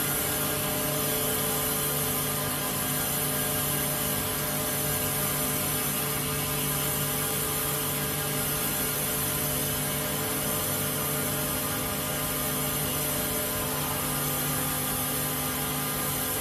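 High pile loop circular knitting machine running steadily: an even mechanical hum with a few constant tones under a bright hiss, holding level without a break.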